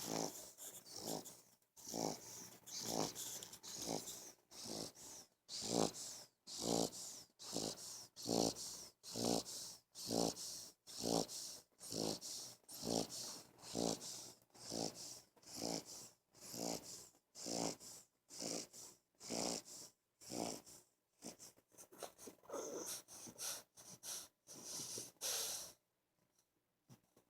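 English bulldog puppy snoring loudly, one snore roughly every second in a steady rhythm. It turns less even shortly before stopping suddenly near the end.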